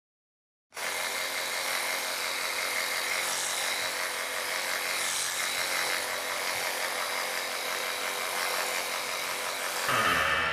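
A steady mechanical whirring hiss that starts suddenly about a second in and holds level; near the end a different, pitched sound comes in.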